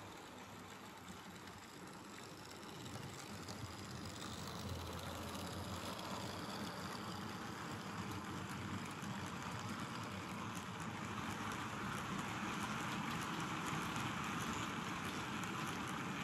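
Model railway train of ore hopper wagons rolling past on the track: a steady rushing noise of wheels on rails that grows louder a few seconds in as the wagons pass close.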